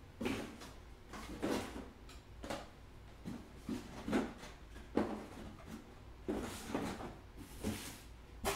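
Hands handling trading-card packs and cards on a table: an irregular run of short rustles and knocks, roughly one a second, with a sharper click near the end.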